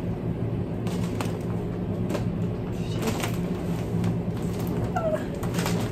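Steady low machine hum, with light scattered rustling of a shiny nylon puffer jacket as the wearer moves and poses.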